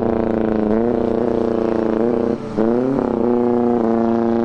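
Two pre-war motorcycles accelerating hard on a drag run. The engine note climbs in pitch and drops back at each gear change, with a short dip in loudness about two and a half seconds in before it climbs again.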